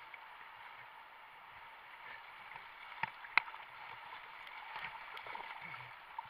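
River whitewater rushing steadily around a kayak, with two sharp knocks a little after three seconds in, about a third of a second apart.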